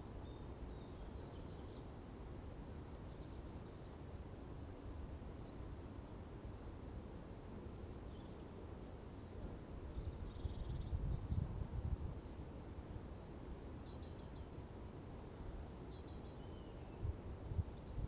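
Outdoor woodland ambience: faint distant bird calls, short high notes repeating throughout, over a low rumbling background that swells about ten seconds in and again near the end.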